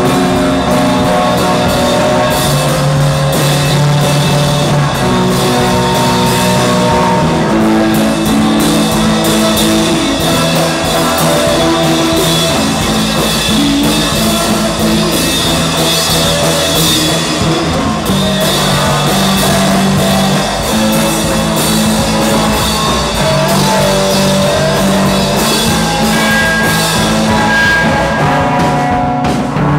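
Live rock band playing: guitar over a drum kit, loud and steady throughout.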